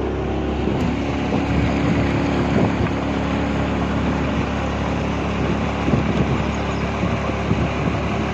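Motorboat engine running steadily under way, with water rushing along the hull.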